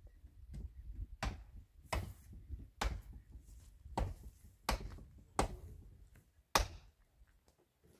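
Footsteps on dry, stony ground: seven sharp steps about a second apart, dying away near the end.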